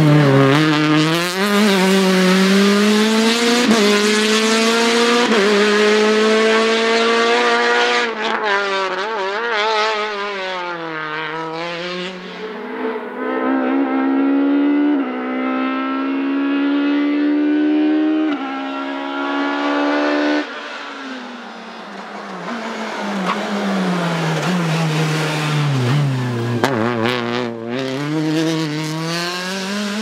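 Peugeot 306 Maxi Kitcar rally car's high-revving 2.0-litre four-cylinder engine at full throttle. The pitch climbs in quick steps through several upshifts, drops away as it comes off the throttle and shifts down, then climbs again through the gears as the car passes.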